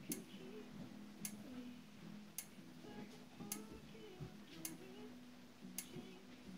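Faint, sharp ticks repeating at an even pace of about once a second, six in all, over a faint low background murmur.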